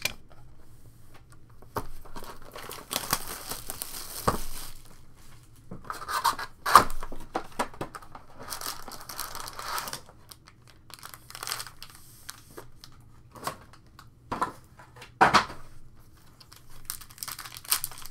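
Plastic shrink-wrap being torn off a trading-card box and crumpled, with the crinkling of foil card packs handled, in short separate bursts with a few sharp clicks in between.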